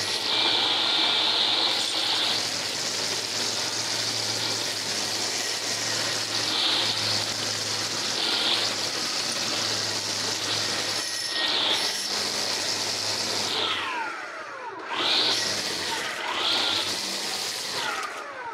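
Stihl FSA135R battery string trimmer running at speed, its line hissing through tall weeds. Near the end its pitch slides up and down, then it cuts off suddenly.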